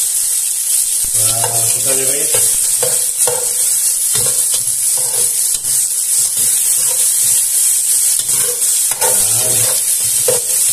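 Onions, garlic and tomato sizzling in hot oil in a nonstick pot, stirred with a metal spoon that scrapes and clicks against the pan.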